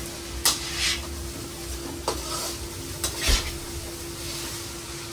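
Metal ladle stirring and scraping egg fried rice around a hot wok over a steady sizzle, with sharp knocks of the ladle against the pan about half a second in, around two seconds in and twice around three seconds in.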